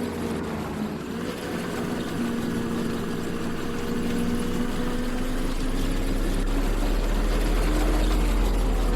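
Farm machinery engine running steadily during wheat harvesting, its pitch dipping slightly and recovering. A deep rumble grows louder through the second half.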